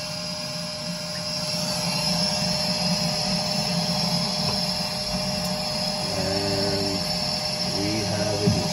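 Burnham Alpine gas boiler's combustion blower running steadily during the pre-ignition stage, with a steady hum and a rushing hiss that grows a little about two seconds in. Two brief humming tones come near the end, followed by a sharp click.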